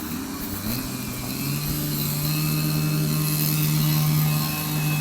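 Radio-controlled car's motor running, its hum rising in pitch over the first second or so and then holding steady.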